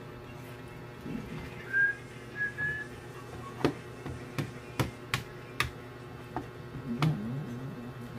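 A metal spoon clinking and tapping against the plate and colander in a string of sharp clicks while vegetable filling is scooped onto lumpia wrappers. A few brief high whistle-like notes come near the start, and a steady low hum runs underneath.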